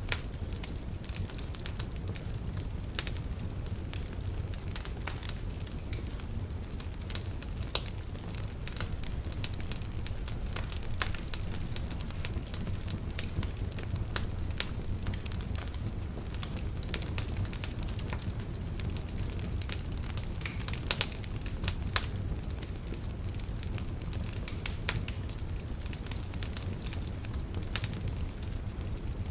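Wood fire burning in a fireplace: a steady low rumble of the flames with frequent sharp crackles and pops, a few louder pops standing out.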